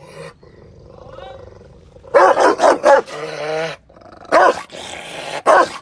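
Rottweiler barking loudly: a quick run of four barks about two seconds in, then two more single barks near the end, with growling between them.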